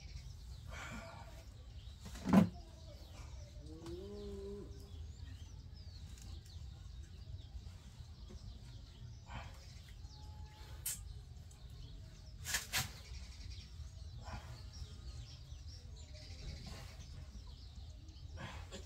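Iron plates of a handheld dumbbell knocking during one-arm rows: one sharp loud knock about two seconds in and a quick pair of smaller ones past the middle, over a steady low rumble. A short bird-like call sounds about four seconds in.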